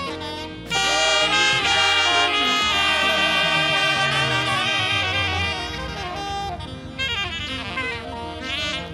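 Several saxophones playing a lively melody together, swelling in loudly just under a second in, with a long held note wavering in vibrato in the middle before the playing thins out.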